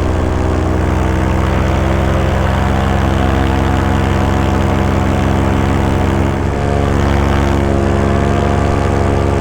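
Engine and propeller of a small powered aircraft running steadily in flight, heard from on board. The engine note shifts briefly about six and a half seconds in.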